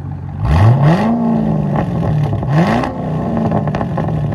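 Chevy SS 6.2-litre V8 through a straight-piped exhaust, blipped twice from idle: each rev rises quickly and falls back, the second starting about two and a half seconds in, before the engine settles to a steady idle.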